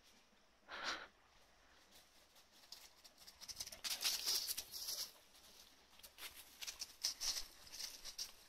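Dry fallen leaves rustling and crunching as dogs run through them on a leaf-covered path, in crisp crackling waves that grow busier from about three and a half seconds in. One short separate sound comes just under a second in.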